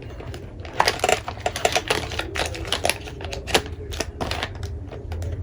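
A quick, irregular run of sharp clicks and taps, like keys being struck, starting about a second in and easing off after about three seconds, over a steady low hum.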